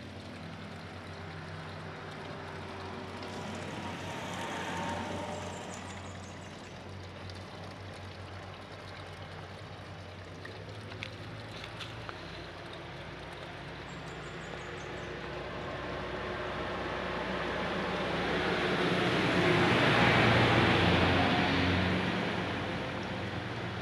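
Road traffic with vehicle engines running. A small swell comes about five seconds in, then near the end one vehicle passes close, its noise building to a peak and fading.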